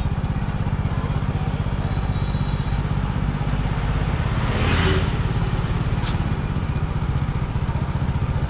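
Motorbike engine running steadily while riding, with a brief louder rush of noise about halfway through.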